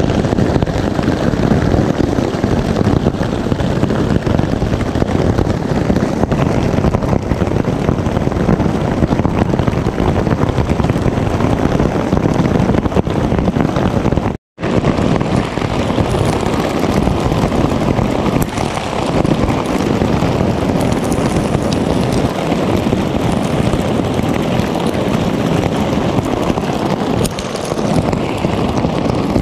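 Storm wind buffeting the microphone while rain and hail come down on the ground and tents. The noise drops out for a split second about halfway through.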